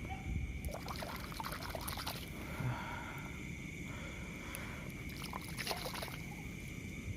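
Water trickling and splashing faintly in irregular small strokes, over a steady high insect drone.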